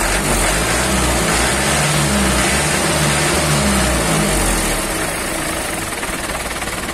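Motor vehicle engine running with a steady low rumble that fades near the end.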